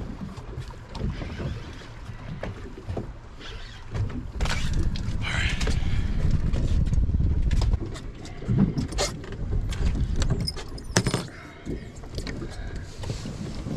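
Wind rumbling on the microphone aboard an open boat, heaviest in the middle, with scattered knocks and rattles as an amberjack is netted and laid on the fibreglass deck.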